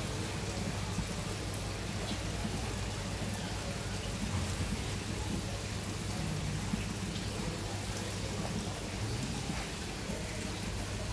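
Steady splashing hiss of aerated, circulating water from a large aquarium's pump and filter, over a low steady hum.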